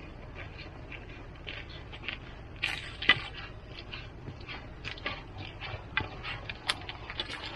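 Footsteps and the metal tip of a walking pole tapping and scraping on wet asphalt, irregular clicks that grow louder and more frequent as the walker comes closer.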